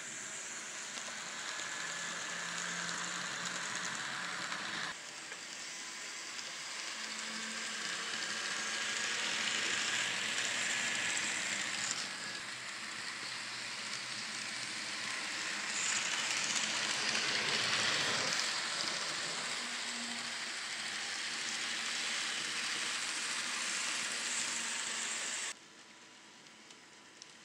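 N scale model trains running on the layout track: a steady whirring hiss of small motors and wheels, getting louder and softer as the locomotives pass. It cuts off suddenly near the end, leaving only a much quieter hiss.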